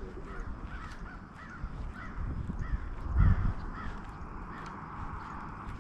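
A bird calling in a quick repeated series, about three short notes a second, that stops about four seconds in. A low thud comes a little after three seconds in.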